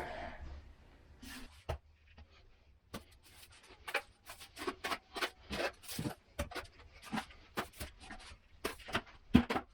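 Finishing trowels scraping and patting stiff mortar onto a shower curb: a few scrapes at first, then from about three seconds in a run of short strokes, about two a second.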